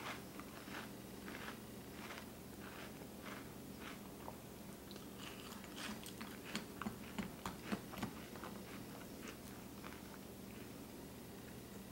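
A person chewing a mouthful of Cinnamon Toast Crunch cereal with milk, steady crunching about every half second or so. About six to eight seconds in, a few sharper clicks come from the metal spoon knocking in the bowl.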